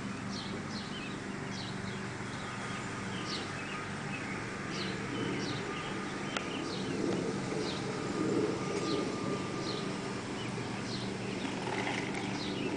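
A bird calling over and over with short, high chirps that slide downward, roughly one a second, over a steady low background. A single sharp click comes about halfway through.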